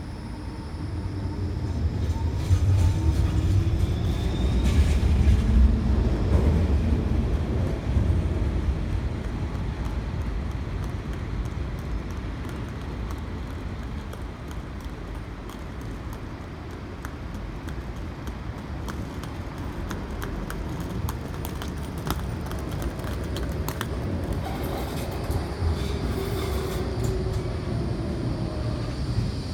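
Heavy vehicles passing on a city street: a low rumble swells over the first several seconds and fades, and another vehicle goes by near the end with a sliding pitch.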